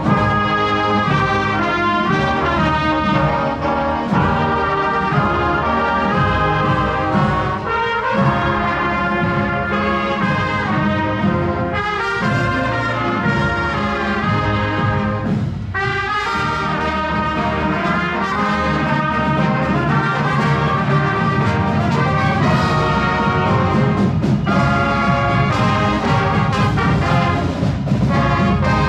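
Marching band playing a brass-led tune, trumpets and trombones to the fore, with drum strikes now and then.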